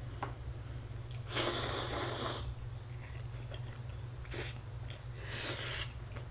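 Instant ramen noodles being slurped: a long slurp lasting about a second, then a short one and another just before the end.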